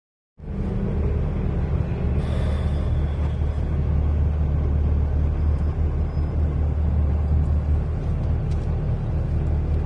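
Compound-turbo Cummins diesel pickup engine running steadily at idle, a low steady drone heard from inside the cab.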